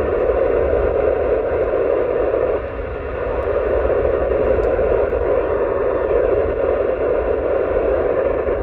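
Steady FM receiver hiss from a dual-band mobile ham radio's speaker, tuned to the AO-91 satellite downlink on 145.960 MHz with no voice coming through, over low road rumble from the moving car.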